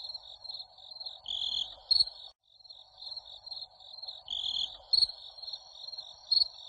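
Insects chirping in a rapid pulsing trill over a soft hiss, broken by sharp knocks about every three seconds. The knocks are the loudest sounds. The whole pattern repeats like a looped nature-sound track.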